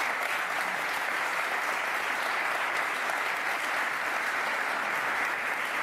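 Audience applauding steadily in a hall, dense clapping from many hands after a speech.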